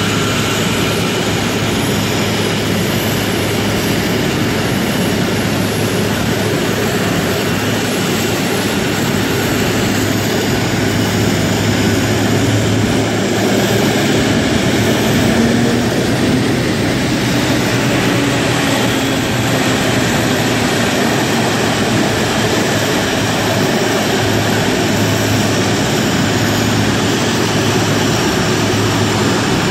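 Boeing 777-200ER's GE90 jet engines running at idle, a steady whine and rumble with a low hum underneath.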